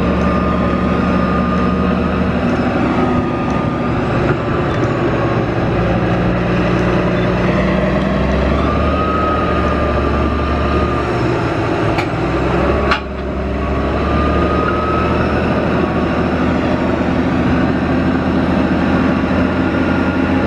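Caterpillar D10 bulldozer's diesel engine running steadily under load, with a high whine that rises and falls over the rumble. A single sharp clank about two-thirds of the way through.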